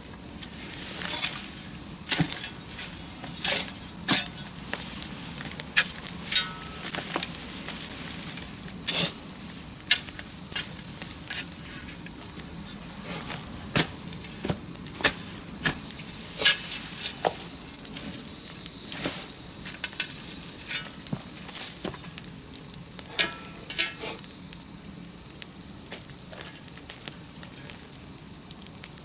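Wood campfire crackling, with sharp, irregular pops over a steady high hiss like sizzling.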